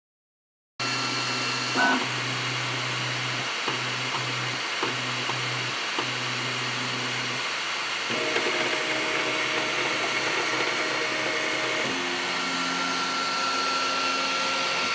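Flashforge Adventurer 5M 3D printer running its X/Y-axis vibration test: a steady whir from its cooling fans, with motor hum tones that jump to new pitches every few seconds as the test moves on. The sound starts abruptly about a second in.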